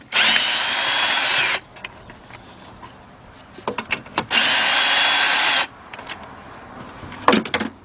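Craftsman cordless power gun with a 10mm deep socket spinning out 10mm bolts: two steady runs of about a second and a half each, with a few light clicks of socket and metal between them.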